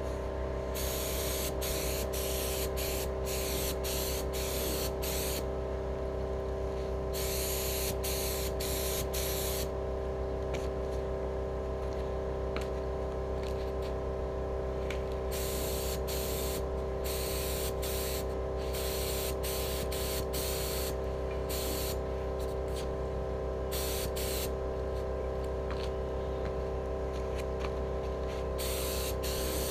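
Air compressor running with a steady hum. Over it, an air spray gun hisses on and off, in quick short spurts and longer blasts, spraying black acrylic enamel onto steel wheels.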